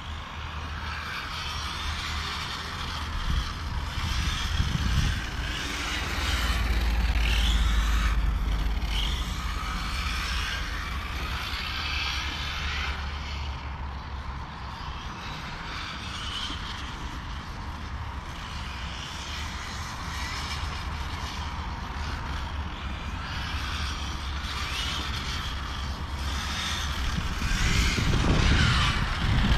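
Serpent SRX8 GTe 1/8-scale electric RC GT car's brushless motor whining, rising and falling in pitch as it accelerates and slows around the track. It is loudest near the end as the car passes close by. At times a low rumble of wind on the microphone lies under it.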